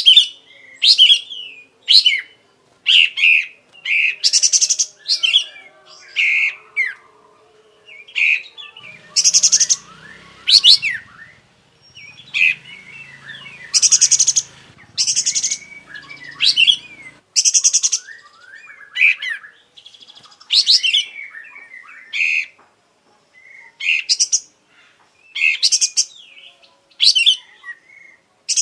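A kapas tembak bulbul singing in a steady run of short, loud, high phrases about once a second, mixing clear whistled notes with fast buzzy rattles as it runs through its mimicked repertoire.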